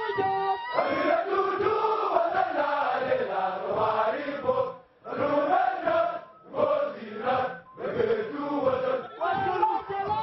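A large crowd of men chanting together in rhythmic phrases, with a few short breaks between phrases around the middle.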